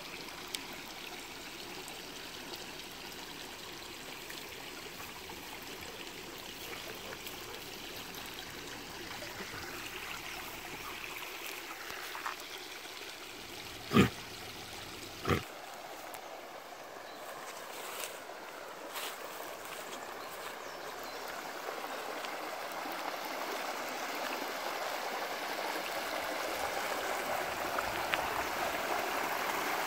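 Small stream running steadily over stones, getting louder toward the end as a small waterfall pouring from a culvert comes close. Two short sharp knocks about a second apart midway.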